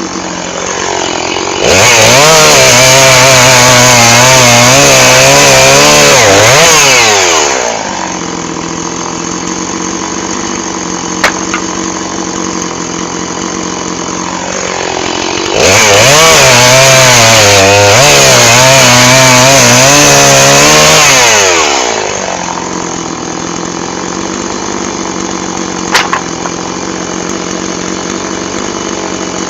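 Chainsaw idling, then run at full throttle for about six seconds, its pitch wavering under load as it cuts through wood before dropping back to idle. This happens twice, with a short sharp click in each idle spell, and the saw begins to rev again at the very end.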